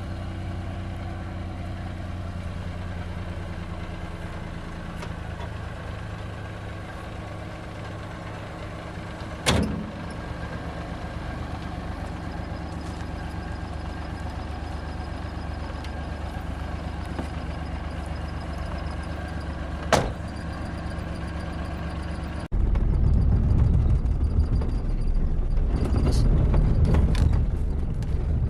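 Suzuki Mehran's small three-cylinder petrol engine running at a steady idle just after it has been started, with two sharp clicks along the way. About three quarters of the way through, the sound jumps suddenly to a louder, rougher low rumble.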